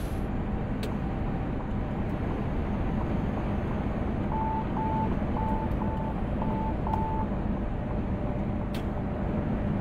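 Steady road and driving noise inside a Mercedes-Benz truck cab. A few seconds in, six short beeps at one pitch sound in an even row: the warning tone of the truck's side-guard assistance system as a car comes up alongside.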